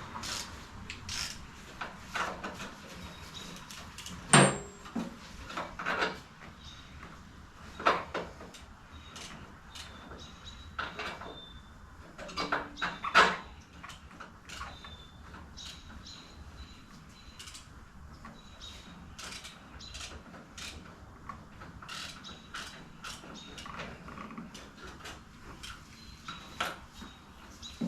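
Irregular clinks and knocks of hand tools and metal parts being handled during motorcycle repair work, with one louder ringing metallic clank about four seconds in and a quick cluster of knocks around halfway.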